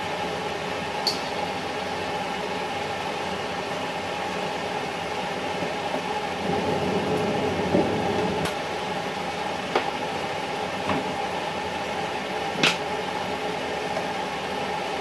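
Steady rushing kitchen hum with a handful of sharp clicks and taps of kitchenware. The loudest taps come about halfway through and near the end.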